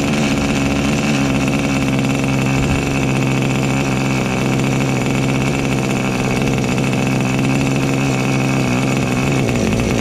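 O.S. Max 25 FP two-stroke glow-fuel model aeroplane engine running steadily and loudly under its own power, turning its propeller at an even speed.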